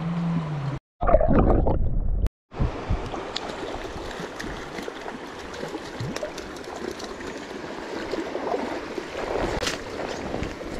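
Shallow stream water running and splashing over riffles, with a louder rush of splashing and wind on the microphone about a second in.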